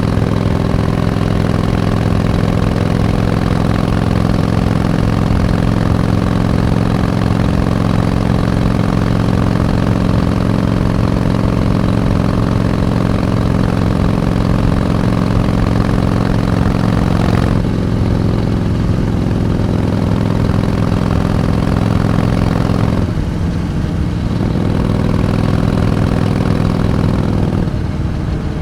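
Harley-Davidson Iron 883's air-cooled 883 cc V-twin engine running steadily with a rumbling, many-toned note. Its sound drops back sharply about two-thirds of the way through, then dips twice more near the end.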